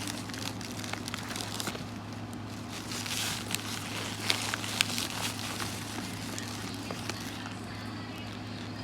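Paper bag crinkling and rustling with sharp crackles as it is handled and opened, easing off near the end, over the steady hum of a noisy air conditioner.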